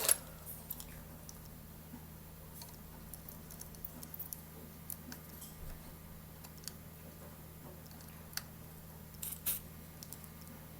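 Faint, scattered light clicks and taps of a soldering iron tip and tweezers against a small circuit board as the chip's pins are touched up, over a steady low electrical hum. The loudest taps come near the end.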